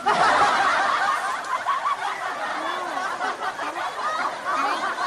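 Laughter, starting abruptly and going on throughout.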